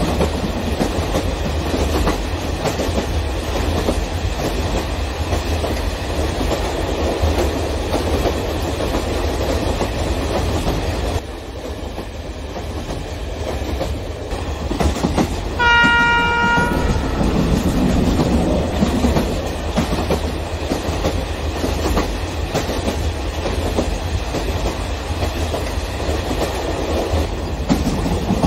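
O scale model container trains rolling along their track, a steady rumble with clicking of wheels over the rail joints. A single horn blast of about a second sounds a little past halfway through.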